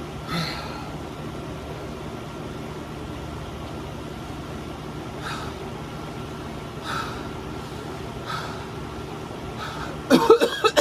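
A person breathing hard through the burn of a super-hot pepper chip, with short sharp exhalations every second or two over a steady background hum. Near the end comes a short, loud vocal outburst.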